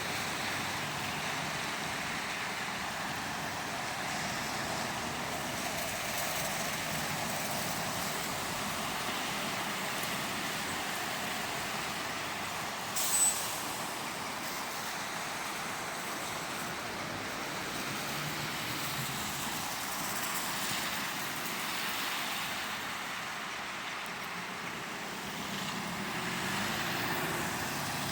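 Steady road traffic with lorries and cars passing, and a brief loud hiss about halfway through.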